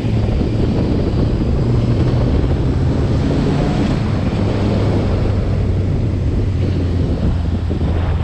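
Vehicle engine running steadily under way, its low drone shifting slightly in pitch, with heavy wind noise on the microphone.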